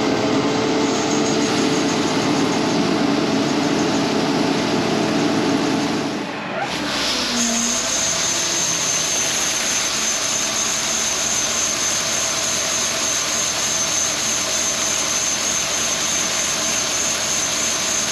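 Tractor pulling a bank-out grain wagon, engine and machinery running steadily. The sound changes abruptly about six seconds in, after which a thin high whine sits over the running noise.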